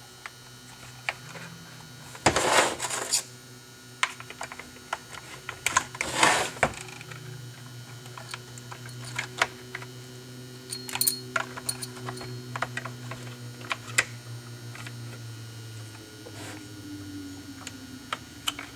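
Small clicks, taps and scrapes of forceps and plastic and metal parts being handled while a new throttle cable is fitted into a Husqvarna 372 XPW chainsaw's handle, with two longer scraping rustles a few seconds apart near the start. A steady low hum runs underneath.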